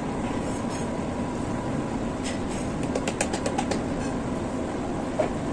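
Flour tipped from a plastic bowl into a steel mixing bowl, with a quick run of light taps past the middle, over a steady background hum.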